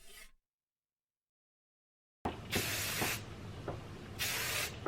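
Background music cuts off, then after a short silence come two half-second hisses of a hair spray can, about a second and a half apart.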